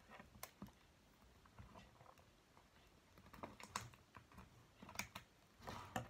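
Faint, scattered light clicks and taps of DVD box-set packaging being handled, a few at a time with short pauses between.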